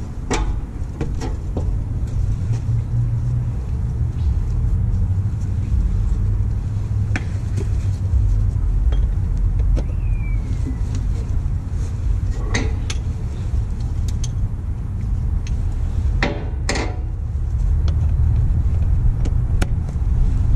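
Semi truck's diesel engine running steadily at idle, heard up close beside its vertical exhaust stack and muffler, the low rumble coming in sharply at the start. A few sharp clicks and knocks are heard over it, the loudest about sixteen seconds in.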